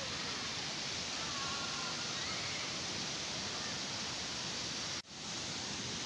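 Steady rush of river water and a waterfall, a dense, even hiss with a brief dropout about five seconds in.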